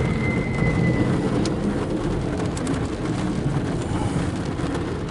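Loaded autorack freight train rolling past close by: a steady rumble of steel wheels on rail with scattered clicks, heard from inside a car. A faint high squeal fades out in the first second.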